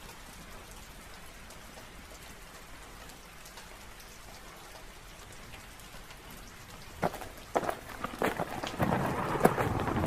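Thunderstorm sound effect: a steady faint rain hiss, then a couple of sharp cracks about seven seconds in and a louder roll of thunder with heavier rain near the end.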